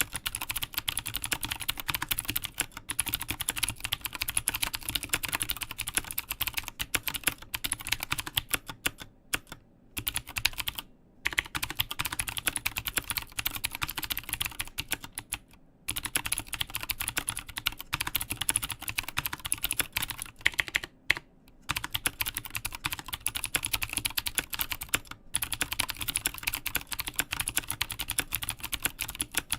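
Continuous fast typing on a mechanical keyboard with Cherry MX Blue clicky switches in an aluminium case, a dense stream of sharp clicks broken by brief pauses.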